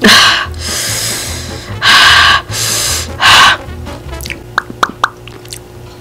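A person breathing hard in loud hissing gasps, five in the first three and a half seconds: the panting of a mouth burning from very spicy noodles. A few wet mouth clicks follow, over background music with a steady beat.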